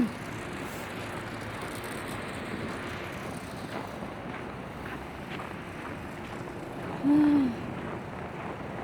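Steady outdoor rushing noise of wind and distant traffic, with one brief vocal sound about seven seconds in.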